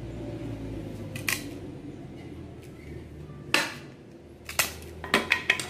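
Butcher knife chopping into a thin plank of crate wood to chop out waste wood: six sharp strikes, one about a second in, a louder one past three and a half seconds, then a quick run of four near the end.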